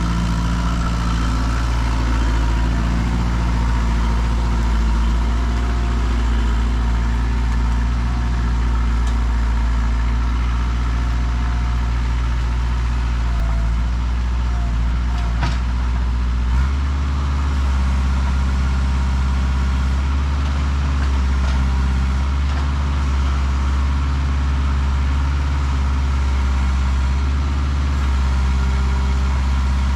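Kubota L48 tractor loader backhoe's diesel engine running steadily. A bit past halfway the engine note changes, and there is one sharp knock just before that.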